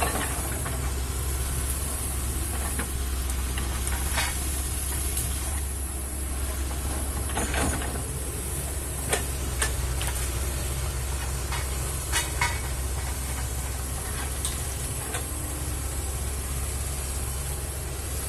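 Kobelco excavator's diesel engine running steadily under work, with a scattering of short sharp knocks and cracks, about half a dozen, over the steady hum.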